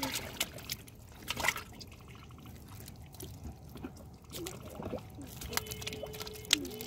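Live catfish flopping and wriggling on wet mud: wet slaps, squelches and drips, with a sharper slap about a second and a half in and another near the end.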